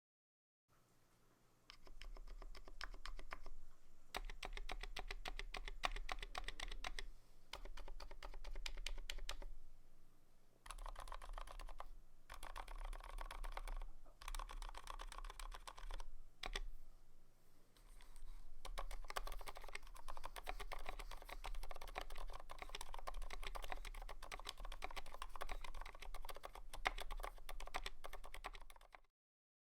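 Typing on a Tokyo60 mechanical keyboard fitted with Kailh BOX Silent Pink linear switches: a fast, continuous stream of keystrokes with a few short pauses.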